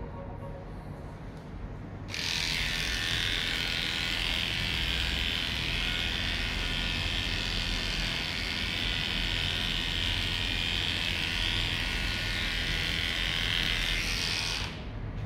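Electric dog grooming clippers start abruptly about two seconds in and run with a steady high buzz as they shave through a matted coat, then stop suddenly shortly before the end.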